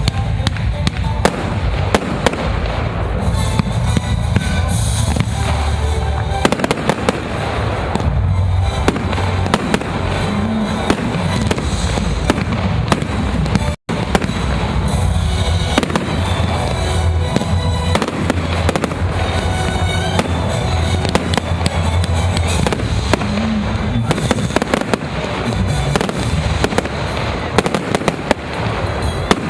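Consumer fireworks going off without pause: a dense run of sharp cracks and bangs over a musical soundtrack with a heavy bass. The sound cuts out for an instant about halfway.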